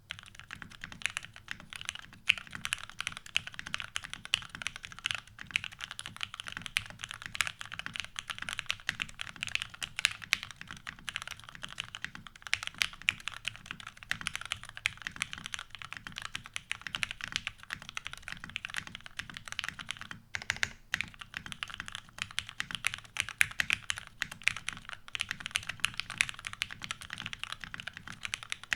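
Fast, continuous typing on a mechanical keyboard with lubed vintage Cherry MX Black linear switches in an aluminium plate, with Cherry G81-3100SAV keycaps: a dense stream of key clicks and bottom-outs, pausing briefly about twenty seconds in.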